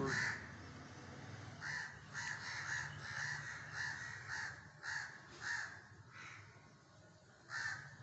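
Crows cawing repeatedly, short harsh calls coming every half second or so, with a brief lull shortly before the end.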